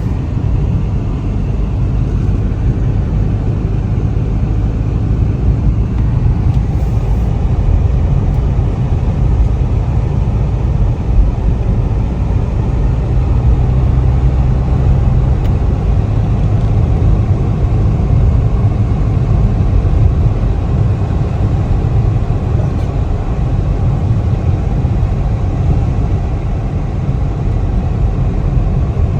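Steady low road and engine rumble of a moving car.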